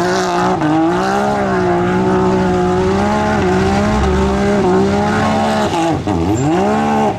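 A side-by-side UTV's engine held at high revs as it spins its wheels through a mud pit. The pitch dips briefly about three and a half seconds in, drops sharply around six seconds in, then climbs back up.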